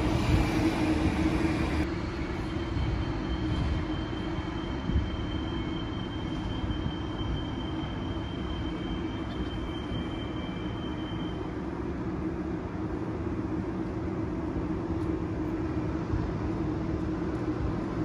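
City-centre street ambience: a steady low traffic rumble with a constant hum, louder for the first couple of seconds, and a faint high whine for several seconds in the middle.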